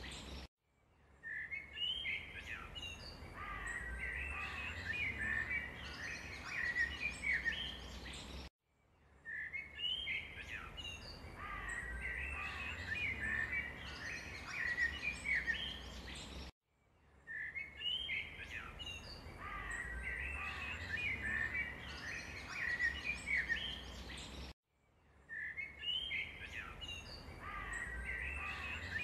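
Small birds chirping and twittering in a busy chorus, a looped recording that restarts about every eight seconds, with a short cut to silence at each join.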